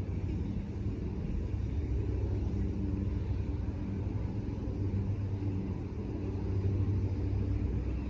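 Steady low mechanical hum over a rumble, growing a little louder near the end.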